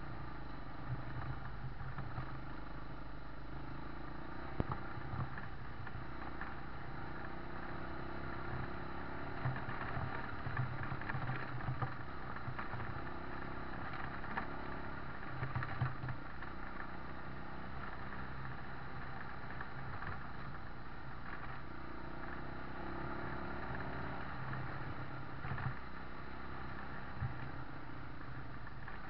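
Motorcycle engine running steadily while riding along a rough dirt track, with occasional knocks and rattles from the bumps.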